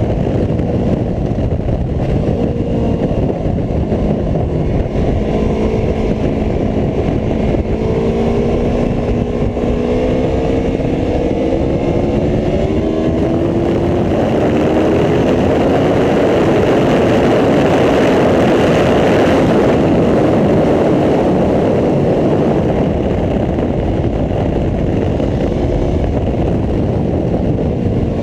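Aprilia Tuono V4 1100 RR's V4 engine pulling hard on track, its pitch climbing again and again as it accelerates through the gears. From about halfway a loud rush of wind noise builds up and partly covers the engine.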